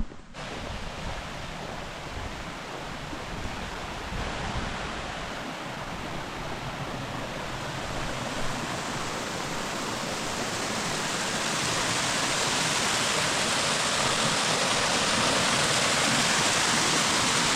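Creek water rushing over a small waterfall, a steady hiss that starts suddenly and grows steadily louder over about twelve seconds, then holds.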